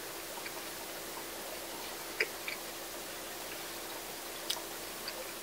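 A few scattered small clicks and ticks, the sharpest about two seconds in, over a steady hiss and a faint low hum.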